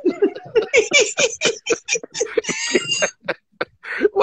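A person laughing hard: a fast run of short laughs, rising into a high-pitched squeal about two and a half seconds in, then trailing off in a few quieter laughs.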